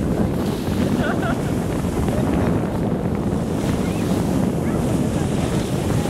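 Surf breaking and washing over a shallow sandy beach, a steady rushing wash with wind buffeting the microphone.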